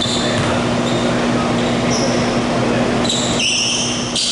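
Basketball sneakers squeaking on a hardwood court, several sharp squeaks near the end as players scramble for a rebound, over a steady low hum and background rush.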